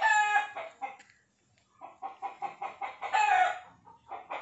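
Domestic chicken cackling: a long call at the start, a quiet pause of about a second, then a quick run of clucks that builds into another drawn-out call about three seconds in.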